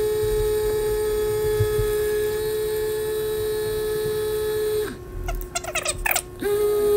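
Vortex mixer motor running with a paint bottle pressed into its cup, a steady electric hum, to mix a bottle of thick, settled paint. About five seconds in the hum stops for a moment with a few short clicks and chirps, then starts up again near the end.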